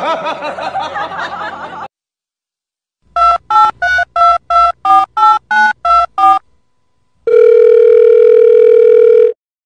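Touch-tone telephone keypad beeps: eleven quick two-tone presses, about three a second, then after a pause one loud steady tone held for about two seconds.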